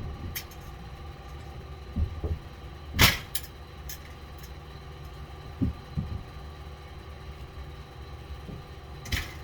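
A steady low hum with a handful of scattered knocks and thumps; the sharpest, a crisp knock, comes about three seconds in, and another comes near the end.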